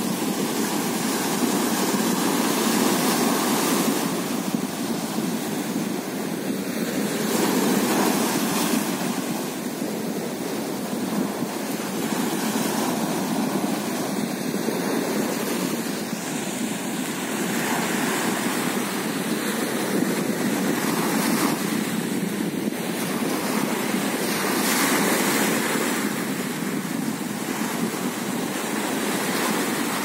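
Small sea waves breaking and washing up a sandy beach: a continuous rushing surf that swells and eases every few seconds as each wave runs in and draws back.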